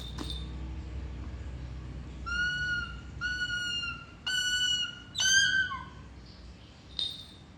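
Captive eagle calling: four short, high, steady-pitched whistled calls about a second apart, the last ending in a falling slur.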